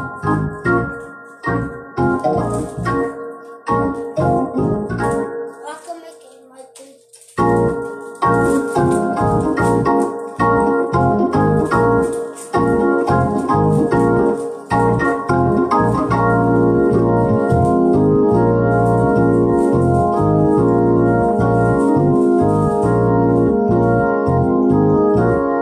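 Two-manual console organ played by hand. Short, chopped chords come first, then a brief pause about six seconds in, then held chords that run on steadily through the second half.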